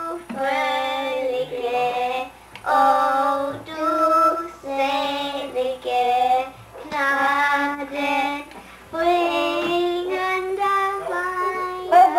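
A woman and a young child singing a song together, in short phrases of held notes with brief breaks between them.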